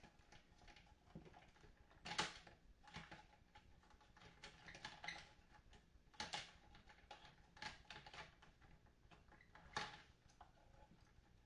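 Scattered light clicks and taps of hands and small tools working on a guitar amplifier's parts and wiring, with three sharper clicks about two, six and ten seconds in.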